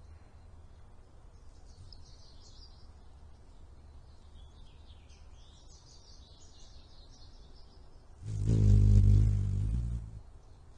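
Allen's hummingbird's wings humming right at the nest as she flies off: a loud, low buzz lasting under two seconds near the end. Before it, faint high bird chirps and twitters.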